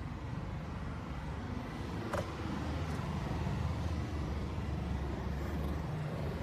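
Nissan Silvia S15's SR20 four-cylinder engine running steadily at low load, with a single sharp click about two seconds in.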